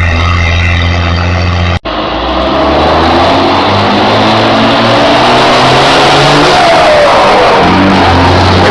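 Mercedes-Benz 1518 truck's turbocharged diesel engine running loud under load, a deep steady drone. It cuts out for an instant about two seconds in, and a whistle slides down in pitch near the end.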